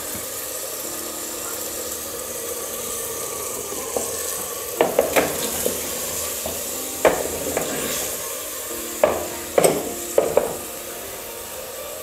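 Dove meat, onions and tomatoes sizzling as they fry in a clay pot, with a steady hiss. From about five seconds in, a wooden spoon stirs and knocks against the pot's sides several times.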